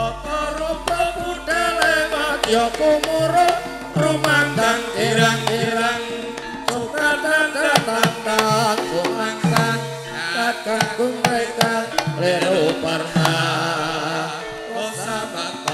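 Javanese gamelan music: dense drum strokes from the kendang hand drums over sustained metallophone tones, with a wavering melody line on top.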